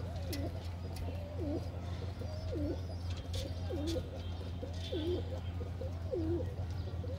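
Domestic pigeon cooing over and over, about one coo a second, each coo swooping up and down in pitch, over a steady low hum.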